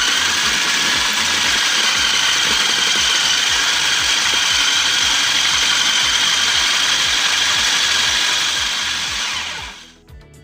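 Electric food chopper running, its blades mashing soft dates with water into a paste. The motor holds a steady whine, then winds down near the end.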